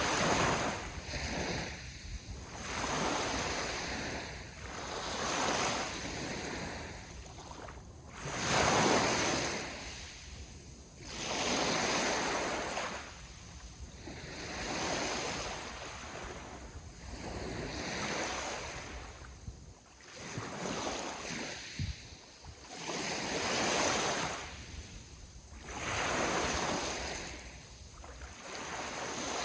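Small sea waves breaking and washing onto the shore one after another, each swell rising and falling every two to three seconds, over a steady low wind rumble.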